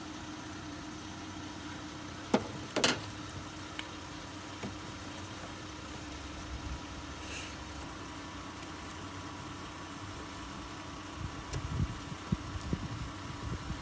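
Car engine idling steadily, with two sharp clicks about two and a half seconds in and a few low knocks near the end.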